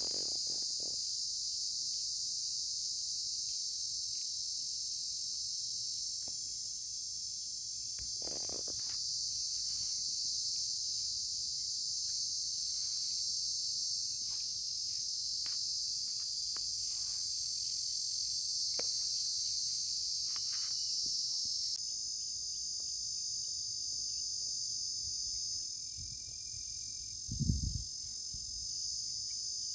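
Steady, high-pitched chorus of insects chirring without a break, with scattered faint clicks and a brief low thump near the end.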